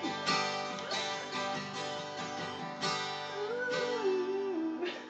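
Acoustic guitar strumming chords, an instrumental stretch between sung lines of a song.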